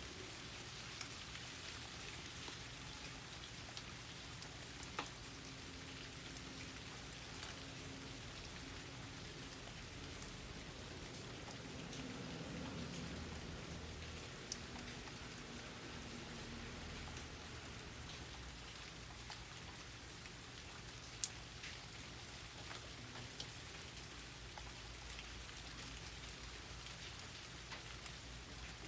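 Steady rain falling, an even hiss of fine patter with occasional single louder drops; the sharpest drop is about three-quarters of the way through.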